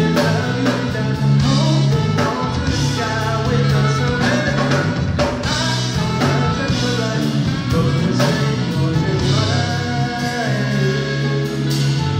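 Live R&B band playing, with a voice singing over the instruments.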